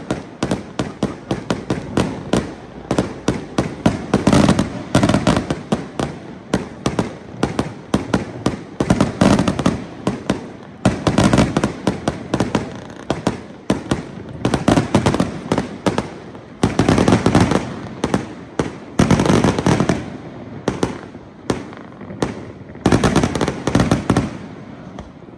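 Fireworks display: aerial shells going off in a fast, dense run of bangs and pops, several a second, swelling into louder clusters every few seconds and easing off slightly near the end.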